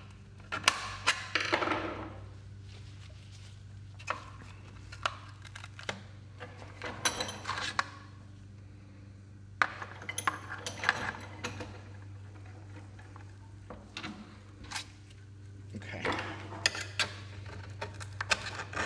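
Screwdriver prying and scraping at the crimped sheet-metal seam of a 1998 Jeep Cherokee's AW4 transmission filter, giving irregular metallic clicks, clinks and short scrapes.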